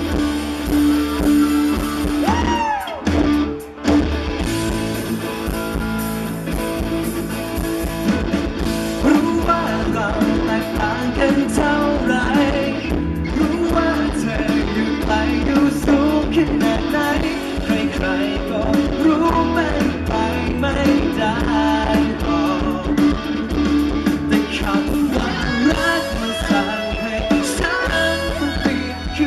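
Live rock band playing, with a male vocalist singing over electric guitar and a drum kit through the stage PA; the sound dips briefly about three seconds in.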